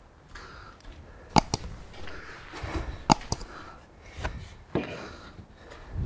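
Footsteps and rustling through rough wet grass as a man walks up to a metal field gate. Two pairs of sharp knocks come about one and a half seconds in and about three seconds in.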